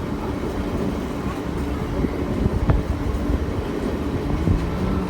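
Train running: a steady low rumble and hum from the moving carriage, with a few knocks and clatters from the wheels about halfway through.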